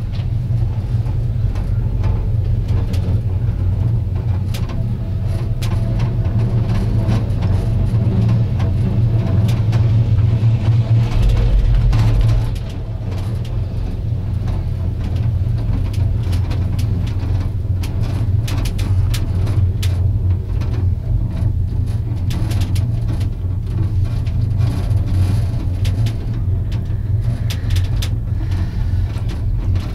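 Gondola lift cabin riding along its haul cable: a steady low rumble with frequent rattles and clicks from the cabin. The rumble drops a little about twelve seconds in.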